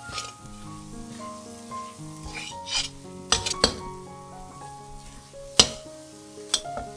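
Metal spatula scraping and tapping against a stainless-steel wok while stir-frying a thick chili paste, with several sharp clinks, the loudest a little over five seconds in. Soft background music with held notes plays underneath.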